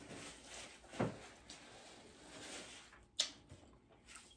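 Two short, soft knocks, about a second in and again a little after three seconds in, over faint background noise.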